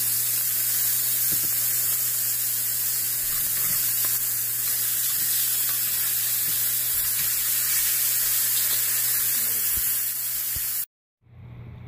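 Beef or lamb steaks sizzling in hot oil in a frying pan, a steady loud hiss that cuts off suddenly near the end.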